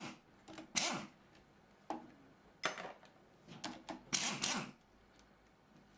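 Pneumatic impact wrench hammering in short bursts, about five of them, as it undoes the cover plate bolts on a Jaguar Mk1 steering box; the longest burst comes a little past halfway.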